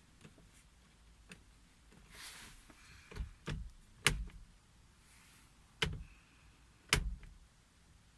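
Sharp clicks and clunks from a 2007 Opel Antara CDTI that won't crank: about six knocks, the loudest about four and seven seconds in, with a brief hiss a couple of seconds in. No starter motor turns and no engine runs.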